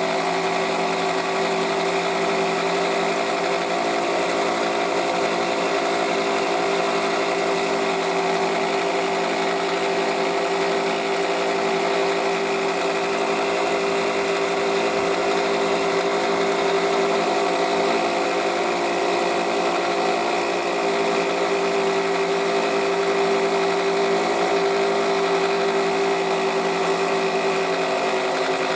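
Toyota Estima engine idling with a steady mechanical whine and a faint rhythmic pulsing, the noise of a worn alternator bearing.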